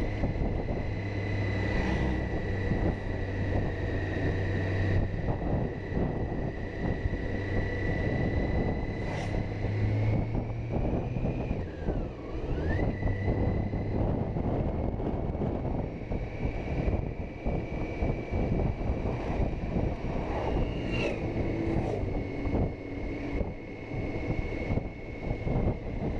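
Touring motorcycle engine running at road speed, with wind rushing over the microphone. A thin steady whine sits above the engine noise, and a pitch glide dips and rises again about halfway through.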